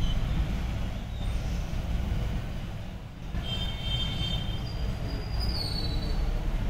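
Steady low background rumble with no clear single source. Faint high-pitched tones come in about halfway through and again a little later.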